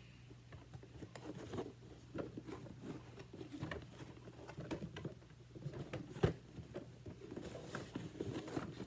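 Cardboard toy box being handled: light irregular taps, scrapes and rustles of fingers on the box, with one sharper knock about six seconds in.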